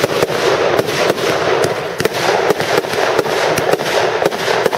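Aerial fireworks bursting overhead: many sharp cracks several times a second over a continuous dense crackle from glittering star effects.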